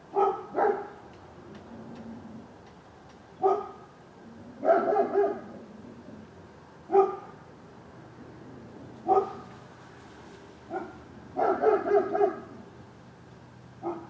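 A dog barking off and on: single barks and short runs of three or four in quick succession.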